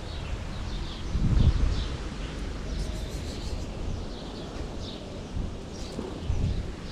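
Small birds chirping in short repeated notes over low wind rumble on the microphone, with gusts of wind buffeting about a second in and again near the end.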